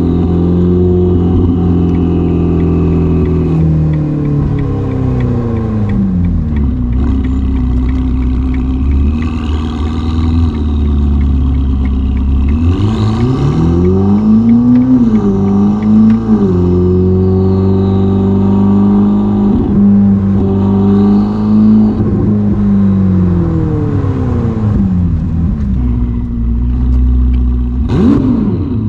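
Ferrari SF90's twin-turbo V8 through a Novitec sport exhaust, driving under load. Its note holds steady, drops as the car slows about five seconds in and again after twenty seconds, and climbs as it accelerates around twelve seconds in. Near the end come quick sharp revs.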